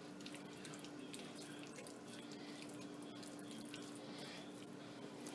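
Faint wet squelching and small clicks from hands rubbing seasoning paste into a raw chicken's skin, over a steady low hum.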